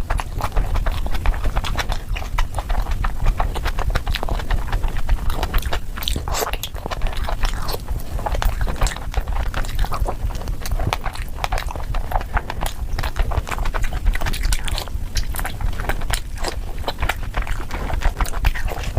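Close-miked chewing and biting of food: a dense, irregular run of small crackling clicks, over a steady low rumble.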